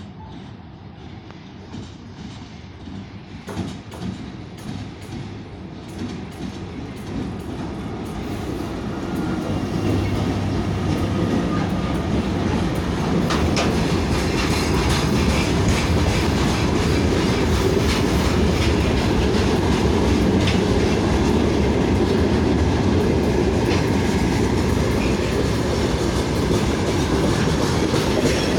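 VL80k electric locomotive hauling a freight train of open coal wagons: the train approaches, growing louder over about the first ten seconds, then the wagons roll past with a steady rumble and repeated clacking of wheels over rail joints.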